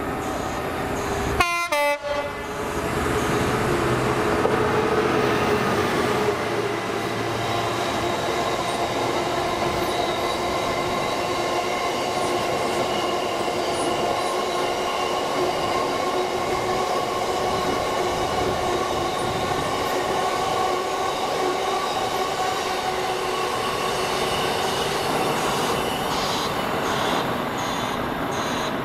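Freight train of open box wagons hauled by a Class 66 diesel, rolling past in a steady loud rumble with several high ringing tones held throughout from the wheels on the rails. There is a brief break in the sound about two seconds in.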